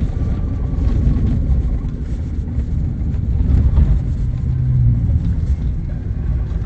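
Steady low rumble of tyre and wind noise inside a moving Tesla Cybertruck, an electric truck with no engine note, travelling a rough dirt road.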